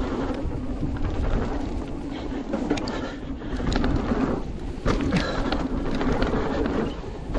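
Mountain bike descending a dirt trail: a continuous rumble of tyres on dirt and wind on the microphone, with sharp knocks and rattles as the bike goes over bumps.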